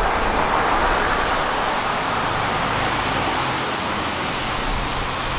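Steady rushing noise of passing traffic, loudest at the start and easing off over the next couple of seconds.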